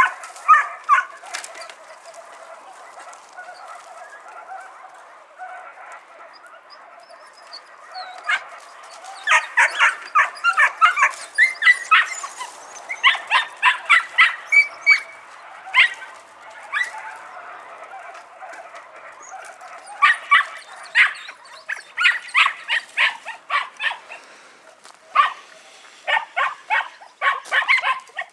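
Three-month-old podenco puppies yapping in rapid runs of high-pitched barks, after a quieter lull in the first several seconds.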